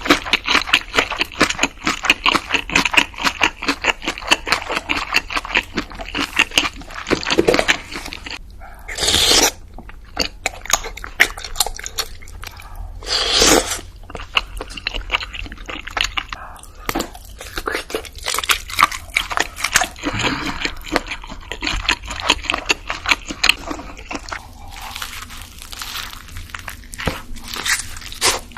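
Close-miked crunching and chewing of food, a rapid crackle of bites and chews. Two longer, louder noisy sounds come about nine and thirteen seconds in.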